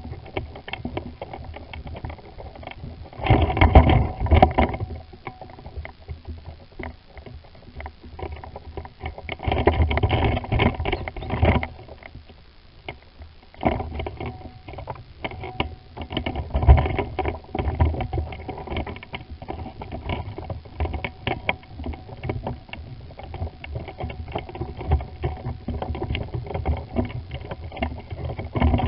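Irregular crackling and rustling, with louder bursts of wind-like rumble on the microphone a few seconds in, around the middle, and again a little later.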